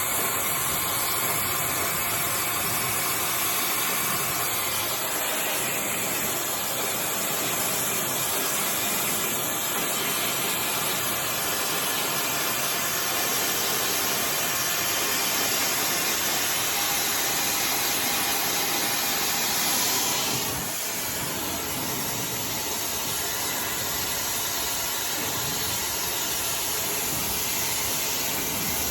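iDryer AI Pro Style hair dryer blowing steadily, a loud rushing hiss of air over its motor. About two-thirds through the sound briefly dips and settles slightly quieter.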